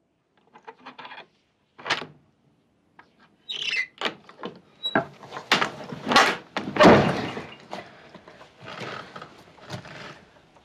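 A wooden door being handled: a short squeak and a string of irregular knocks and thuds, the loudest about seven seconds in.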